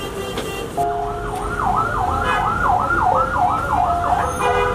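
Emergency vehicle siren in a fast yelp, its pitch sweeping up and down about three times a second, coming in about a second in.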